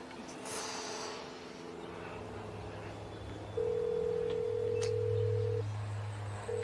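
Telephone ringing tone heard through the handset on an outgoing call: one steady tone of about two seconds, a pause of about a second, then the tone again near the end. A low steady drone runs underneath.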